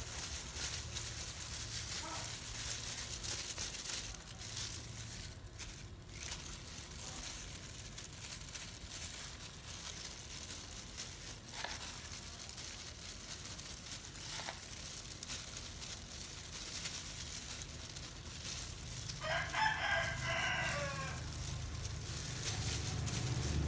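A low, steady hum and hiss, with one drawn-out bird call about 19 seconds in whose pitch falls slightly at the end.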